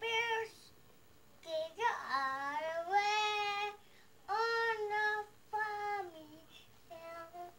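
A toddler girl singing in a high voice: a few drawn-out notes with short breaks between them, no clear words.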